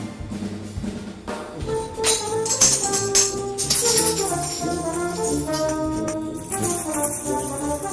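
Salvation Army brass band playing an upbeat hymn arrangement, with timbrels (Salvation Army tambourines) struck and shaken in rhythm over it.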